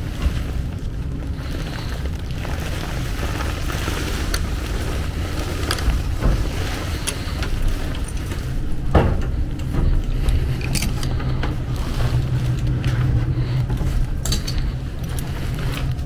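Gas furnace running: a steady low rumble, with several sharp clicks and knocks of someone handling things and moving among the attic rafters.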